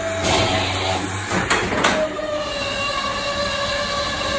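HOLZMA HBM 26/1 CNC drilling center running: a steady, high motor whine. Two short rushing noise bursts come about half a second in and about a second and a half in.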